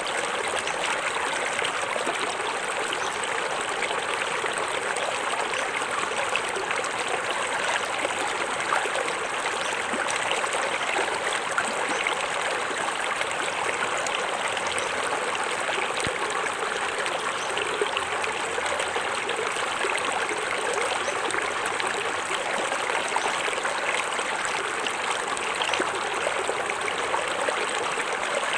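Small forest waterfall: water splashing and trickling over rocks in a steady, even rush.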